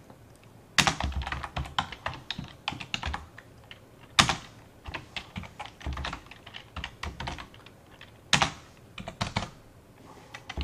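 Typing on a computer keyboard: irregular bursts of keystroke clicks, with a few strokes much louder than the rest.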